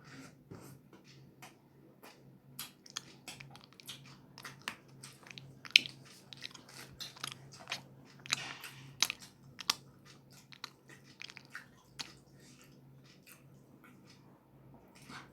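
Close-miked chewing and biting of roti with tadka: irregular sharp crackling clicks and short crunchy bites, the sharpest a little before halfway, over a faint steady low hum.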